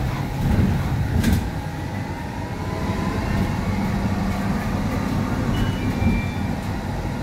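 Cabin noise inside a Higer electric minibus on the move: a steady low rumble from the road and body, with a faint whine from the electric drive rising in pitch as the bus gathers speed. A couple of sharp rattling clicks come in the first second or so, and two brief faint high beeps sound near the end.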